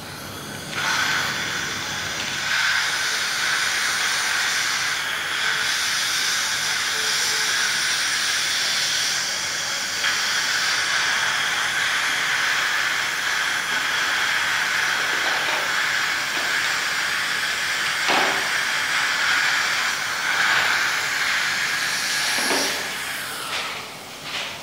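Dental suction tube in a child's mouth during a tooth extraction, running as a steady hiss. It starts about a second in and stops near the end.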